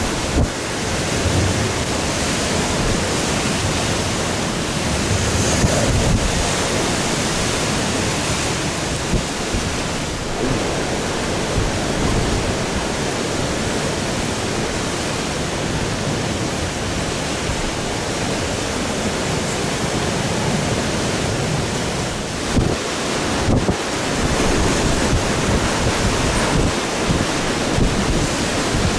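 Strong tropical-storm wind blowing steadily and buffeting the microphone, swelling in a few gusts.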